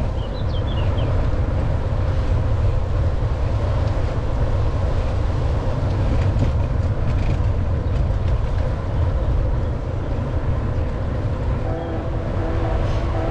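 Steady wind rumble on the microphone of a camera riding along on a moving e-bike. A few steady tones come in near the end.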